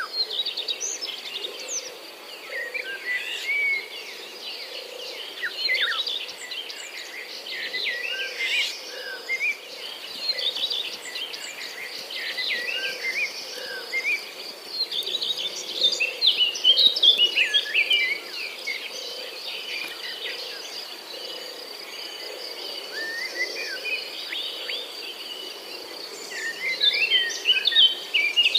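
Several birds singing and calling in quick chirping, warbling phrases, over a steady high-pitched insect drone. The birdsong comes in bunches, busiest near the middle and again near the end.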